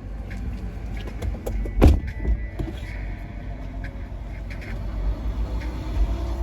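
Car engine running, heard from inside the cabin as a steady low rumble, with small clicks and one sharp knock about two seconds in.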